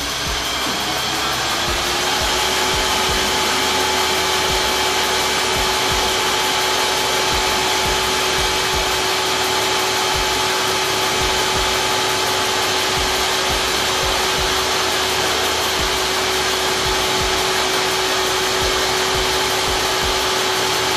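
An electric motor in a pump room spins up, its whine rising in pitch over about two seconds, then runs at steady speed with a loud even rushing hum and a constant whine.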